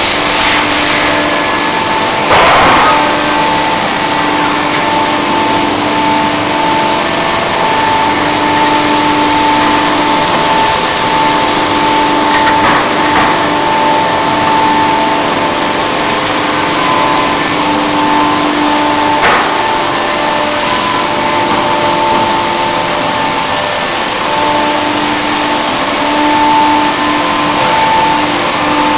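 Small CNC milling machine running: a steady motor whine with several tones that come and go, a sharp knock about two and a half seconds in and a short click near twenty seconds.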